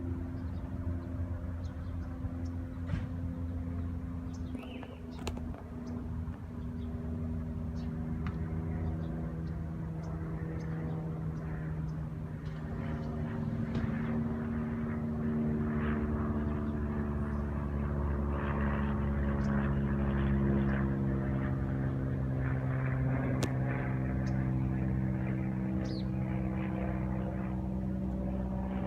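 An engine running steadily, its pitch drifting slowly up and down and growing a little louder through the middle, with a few faint ticks.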